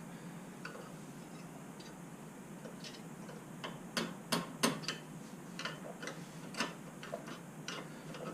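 Small scattered metallic clicks and ticks as a small pry tool is worked back and forth under a spring clip to wedge it off a motorcycle's chrome saddlebag support, with a cluster of sharper clicks about halfway through.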